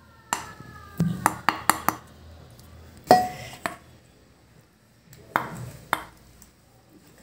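Wooden spatula knocking against a stainless steel bowl as semolina halwa is scooped off the pan into it: a quick run of sharp knocks about a second in, a ringing metallic clink about three seconds in, and two more knocks near the end.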